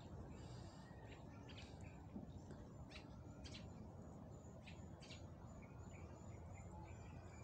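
Near silence: a faint low rumble of outdoor ambience with a few short, high chirps scattered through it.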